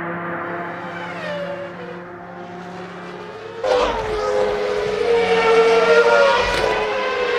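Formula One car engines at high revs, a high whining note. A falling note comes about a second in, then it turns suddenly louder about three and a half seconds in, with the pitch rising and falling through the gears.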